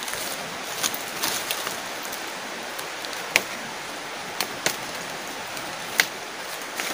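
Large green leaves being snapped off a shrub's stems by hand, with rustling and several sharp snaps over a steady hiss.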